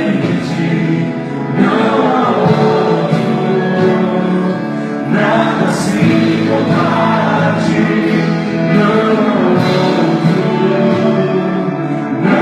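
Gospel worship music: a group of voices singing together, with sustained chords throughout.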